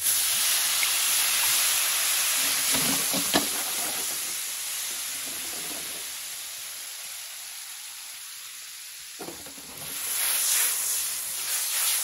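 White wine splashing into a hot pan of melted butter and shallots, setting off a loud hiss and sizzle as the pan is deglazed for a butter sauce. The sizzle starts suddenly and slowly dies away. A light knock comes about three seconds in, and the sizzle swells again near the end.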